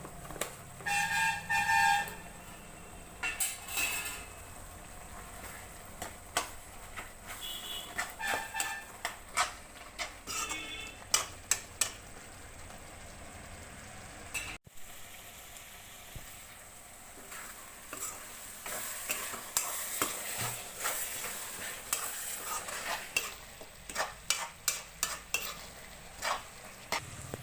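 Spoon scraping and clicking against a pan as spiced onion-tomato masala is stirred and fried, with a steady sizzle underneath. A few brief ringing knocks of the utensil on the pan come in the first half.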